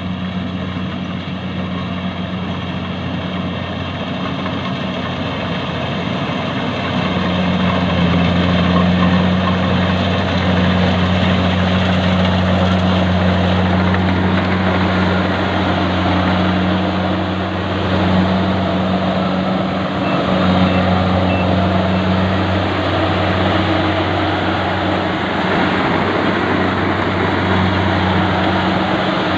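Engine of rice-harvesting machinery running steadily with a constant low hum, growing louder from about seven seconds in.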